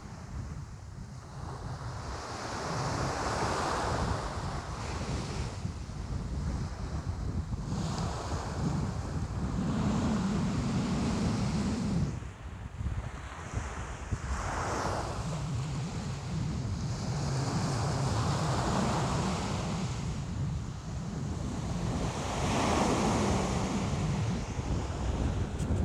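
Ocean waves breaking and washing up the shore, surging every few seconds, with wind rumbling on the microphone underneath.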